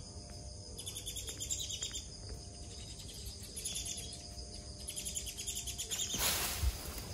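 Small birds chirping in short clusters over a steady high insect whine, with a brief burst of hissing noise near the end.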